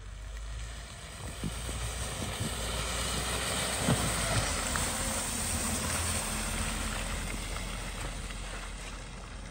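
Tata Punch compact SUV driving past on a slushy snow-covered road, mostly tyre noise on the slush over a low engine rumble. It grows louder as the car approaches, is loudest about four seconds in as it passes close, then fades as it drives away.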